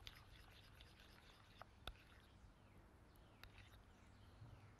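Near silence, with a few faint clicks of a small spoon against a bowl as soft mascarpone cheese is stirred.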